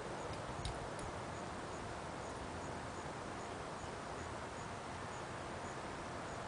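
Steady outdoor background hiss with a faint, high tick repeating about three times a second, and two light clicks about a second in.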